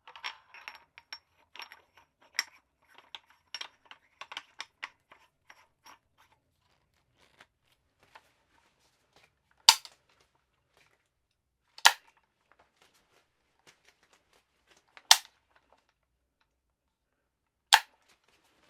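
Handling noise from a PSA Soviet Arms AKS-74U-style 'Krink' pistol: a run of small clicks and rattles for the first few seconds. Then four loud, sharp clacks from its action, each two to three seconds apart.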